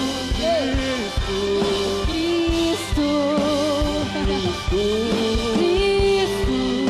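Live worship band music: long held sung notes, some wavering and gliding in pitch, over a steady low bass and soft drum hits.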